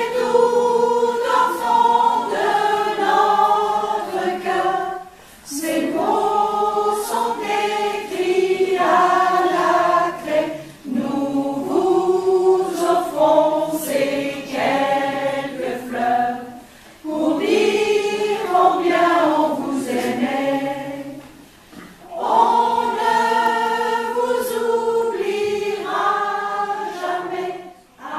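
Amateur mixed choir of men's and women's voices singing a French song in phrases a few seconds long, each separated by a brief pause for breath.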